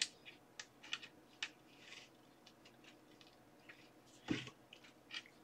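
Faint, scattered small clicks and taps of furniture-assembly fittings being handled and turned on wooden futon-drawer parts, with one louder knock about four seconds in.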